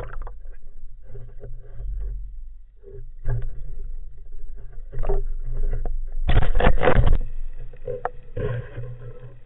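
Water noise around a spearfisher's camera, with scattered knocks and a louder rushing burst about six and a half seconds in.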